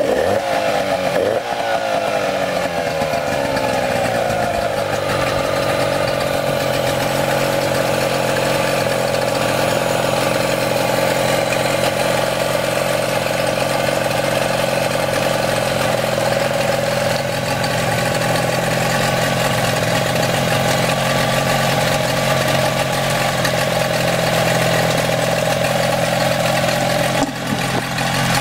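Nissan 8 hp two-stroke outboard motor, running with its cowling off: its speed falls over the first few seconds, then it idles steadily.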